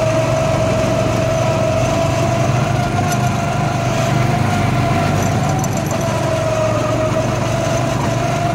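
Go-kart's small engine running at a steady speed, heard from the driver's seat, a constant tone that barely rises or falls as the kart laps the track.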